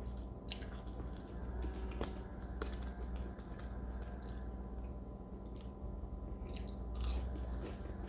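Close-up eating sounds, scattered small wet clicks and chewing, over a steady low drone of machinery from the neighbour's yard work.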